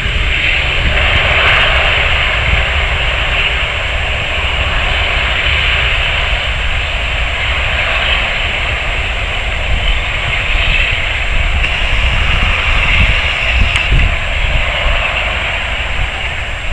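Airbus A380's four Rolls-Royce Trent 900 jet engines running as the airliner moves on the ground: a steady jet roar with a strong hiss high up. Wind buffets the microphone.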